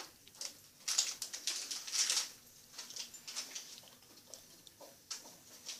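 A bullmastiff chewing and mouthing at something held between its front paws: irregular smacking and clicking sounds.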